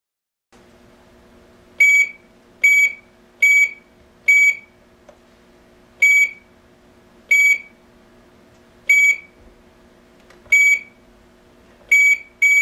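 A GSM cellular alarm unit giving about ten short, high-pitched electronic beeps at irregular intervals, over a faint steady electrical hum that starts about half a second in.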